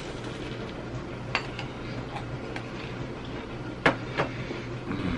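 Quiet sounds of a man eating buttered bread over a steady low background hum, with a few light clicks, the sharpest two close together about four seconds in.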